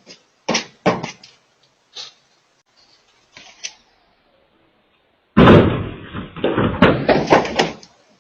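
A few sharp thumps, then about two seconds of loud, rapid banging and thudding.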